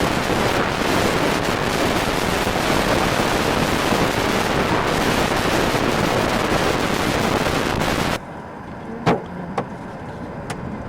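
Storm wind buffeting the microphone with a loud, steady rush that cuts off suddenly about eight seconds in. A few sharp knocks follow.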